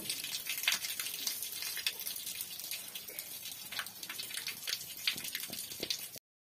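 A young cow urinating in a steady stream onto a concrete barn floor, splashing and spattering into a puddle. The sound cuts off suddenly about six seconds in.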